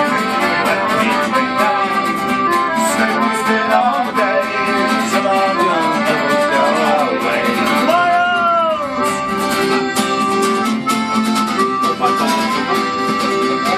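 Irish folk band playing live: fiddle, strummed acoustic guitar and accordion together, with a man singing over them.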